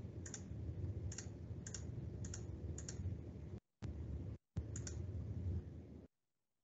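Faint, irregular clicks from a computer mouse and keyboard, roughly two a second, over a low steady hum picked up by the same microphone. The sound drops out briefly twice and cuts off to silence near the end.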